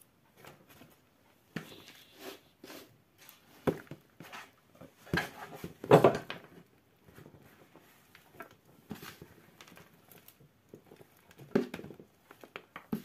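Loose potting soil poured from a plastic basin into a clear plastic tub: irregular rustles and knocks of soil and plastic, the loudest about six seconds in.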